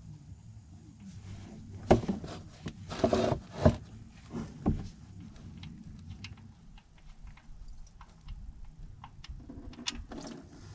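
Hand work at a car's oil-pan drain plug: a cluster of sharp knocks and short scraping rushes about two to five seconds in, then quieter fiddling and another short rush near the end.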